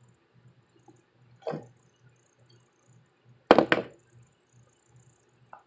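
Short handling knocks: a soft thud about one and a half seconds in, then a louder quick double knock about halfway through, over a faint low pulse repeating about three times a second.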